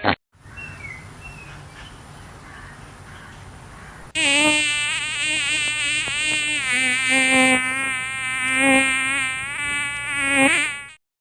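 A flying insect buzzing, loud and steady with a slightly wavering pitch, starting about four seconds in and cutting off near the end; before it, only a faint hiss.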